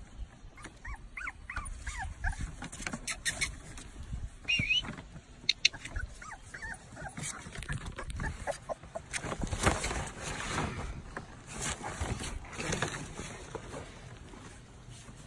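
Young puppies, almost four weeks old, give several short high whimpers and squeaks. Between the calls comes a scratchy rustle and crinkle of kraft paper as they scramble over it.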